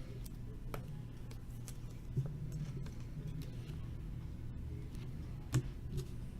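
A few scattered sharp clicks and taps over a low steady hum.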